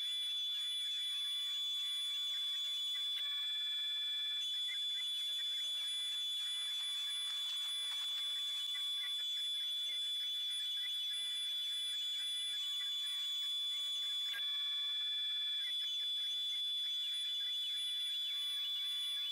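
Tormach PCNC 440 mill's spindle and axis motors while a 1/16-inch ball end mill cuts a groove in brass bar, sped up twentyfold. A steady high whine runs under fainter tones that step up and down every few seconds as the moves change.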